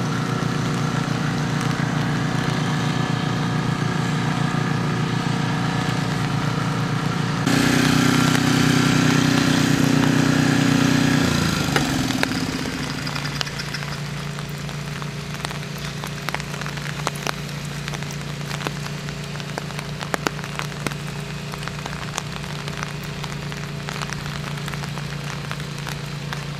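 An engine running steadily; about seven seconds in it speeds up and gets louder, then winds down in pitch around eleven to twelve seconds and settles into a quieter, lower steady hum. Rain falls, with scattered drops ticking.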